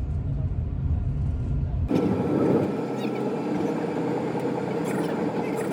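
City street vehicle noise: a low, steady rumble of passing traffic, which switches abruptly about two seconds in to a denser, brighter running noise.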